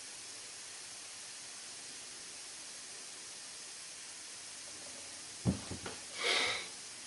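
Steady faint hiss, broken about five and a half seconds in by a few soft knocks and then a brief rustle as a kneeling person shifts and brings his hands down onto his shorts.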